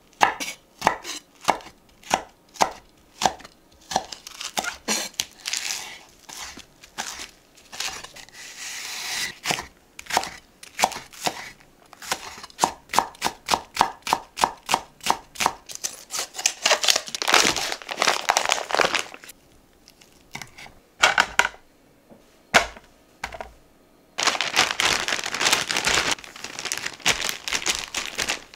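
Kitchen knife chopping food on a cutting board: a steady run of sharp knocks, at times quickening into fast strokes, broken by a few short pauses.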